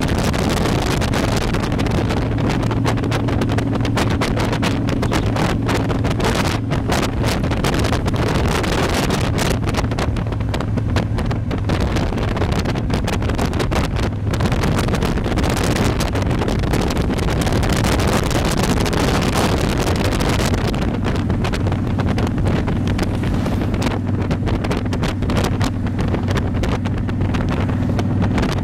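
Motorcycle engine running at steady cruising speed, a low hum under gusty wind noise buffeting the microphone.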